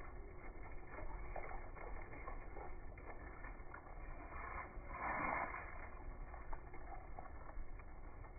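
Wind rumbling on the microphone, with scattered light clicks and rustles and a louder swell of noise about five seconds in.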